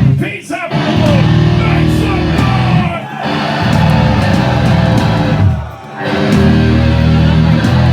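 Live hardcore punk band playing loud distorted electric guitar and bass chords in stop-start phrases, breaking off briefly about every two and a half to three seconds.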